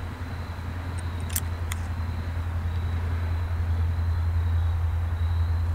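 Norfolk Southern diesel locomotive approaching, its low engine drone growing steadily louder.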